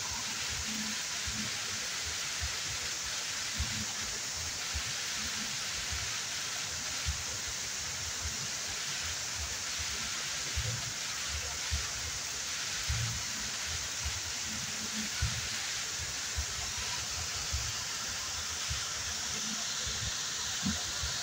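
Waterfall: falling water making a steady rushing hiss, with irregular soft low thumps under it.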